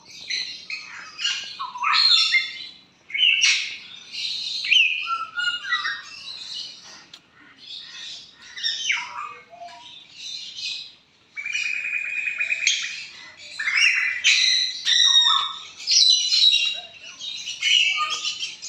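A crowd of captive parrots, macaws and parakeets, calling over one another in shrill chirps, whistles and harsh squawks, with one longer rasping squawk about two-thirds of the way through.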